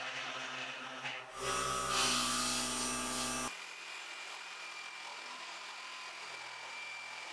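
Airbrush compressor humming steadily, with the airbrush's spray hiss loud from about a second and a half in. Then an abrupt cut to a small rotary tool running steadily with a thin whine, its bit held against a small plastic lure.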